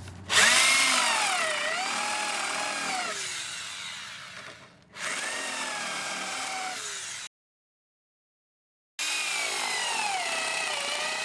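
Power drill boring countersink holes into macrocarpa timber with a 32 mm spade bit, in three runs. The motor whine dips and wavers in pitch as the bit bites into the wood.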